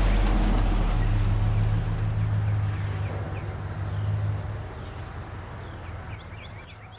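A low, steady engine-like drone fades out over several seconds while small birds chirp, the chirps growing more frequent near the end.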